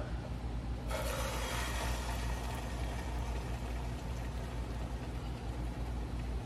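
Egg, cheese and fried potato-stick mixture hitting hot oil in a saucepan and sizzling, starting suddenly about a second in and then running steadily. A steady low hum lies underneath.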